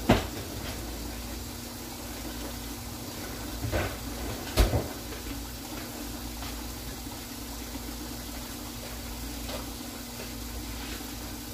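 A door thumping shut, then two more knocks about four seconds in, over a steady low hum.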